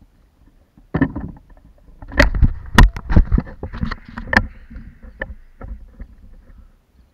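Irregular run of knocks and thumps on a hollow plastic kayak. They begin about a second in, come thickest in the middle and thin out near the end, as a freshly landed barracuda and the fishing gear are handled aboard.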